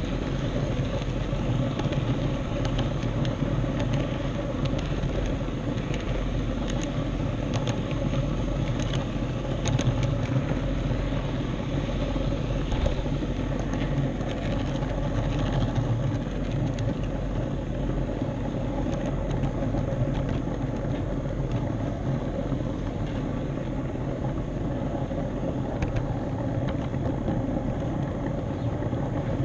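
HO scale model train running along the track under the camera: a steady motor hum and wheel rumble, with occasional short clicks.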